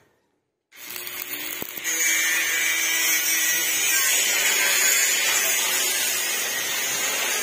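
Stick (arc) welder tack-welding the steel mesh matting to the steel gate frame: a steady sizzle of the arc that starts about a second in and grows louder about two seconds in.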